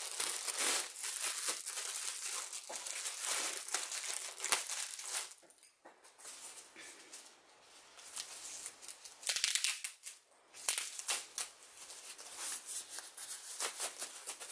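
Packaging around a speaker control pod being ripped open by hand and with teeth: irregular crinkling and tearing, with a quieter spell midway.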